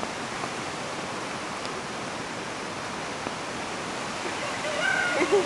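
Steady rain falling, an even rushing hiss, with a short high-pitched call near the end.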